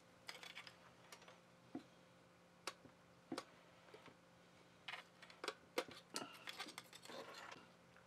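Hands working wires and small plastic parts out of the end housing of an electric motor: scattered light clicks and taps, getting busier with rustling and scraping about six seconds in.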